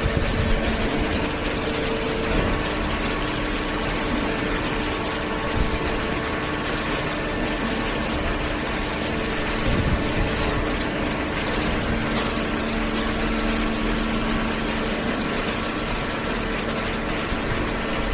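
Automatic baler machine running: a steady mechanical hum with a few held tones and no distinct strokes or impacts.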